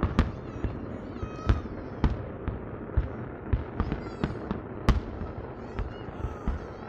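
Aerial fireworks display: shells bursting in an irregular string of bangs over a continuous rumble of further explosions, the sharpest bang about five seconds in.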